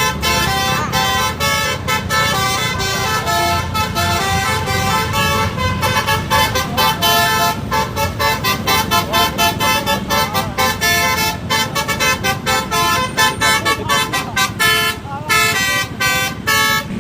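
Bus Basuri 'telolet' multi-tone air horn playing a long, fast melody of short notes, one after another with hardly a break.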